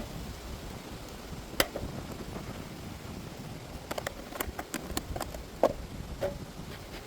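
Sharp clicks and knocks of beehive woodenware being handled: one about a second and a half in, then a quick cluster of them from about four to six seconds in, over a steady low background noise.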